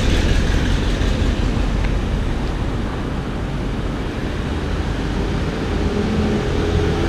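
City road traffic at an intersection: cars and a bus driving past, a steady low rumble of engines and tyres. It grows louder near the end as a heavier engine draws closer.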